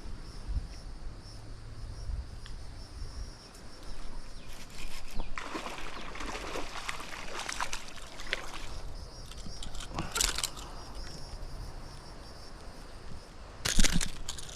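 Steady faint high insect buzz, broken by several louder bursts of rustling noise from about four seconds in, with one more near the end.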